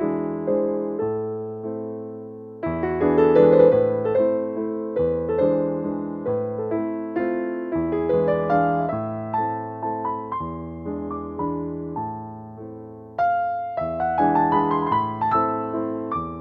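Background piano music: a calm melody over chords, each note struck and fading away, with the playing picking up in loudness about three seconds in and again near the end.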